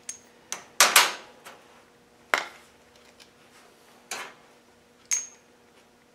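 Metal pulley and bearing parts being handled and set down on a sheet-metal workbench: about six separate clicks and clanks, some with a brief metallic ring, the loudest about a second in.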